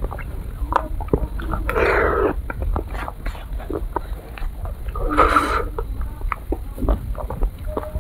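Close-miked eating of ice cream: small clicks and wet mouth smacks from a metal spoon and lips, with two longer slurps, about two seconds in and about five seconds in.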